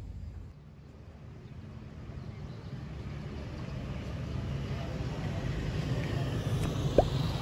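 City street traffic at a railway level crossing: a low rumble of motorbike and car engines that grows gradually louder. Near the end comes a single short, sharp chirp.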